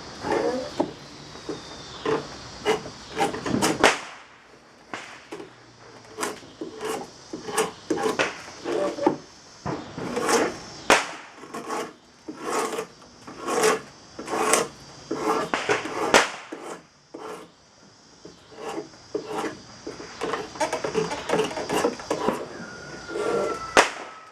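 Draw knife shaving green black locust, pushed bevel-first: a series of short scraping cuts, about one to two a second, with a couple of brief pauses.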